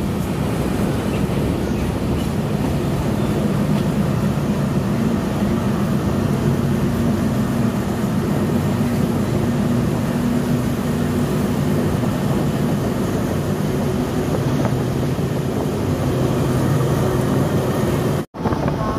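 Diesel passenger train running along the track, heard from beside a moving carriage: a steady rumble of engine and wheels on rail with a low hum. The sound cuts out abruptly for a moment near the end.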